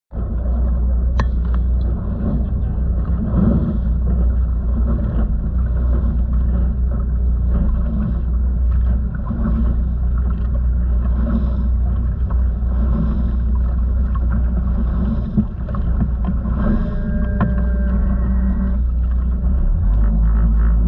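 Outboard engines of a 32-foot Skater catamaran running at high speed, a steady loud rumble.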